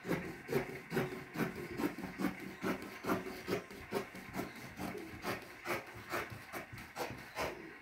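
Scissors cutting through white uniform cloth in a steady run of snips, about two a second, each with a short scrape as the blades close.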